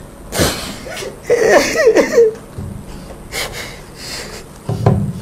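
A man crying: a sharp sniff, a wavering, choked sob, then further sniffs and heavy breaths.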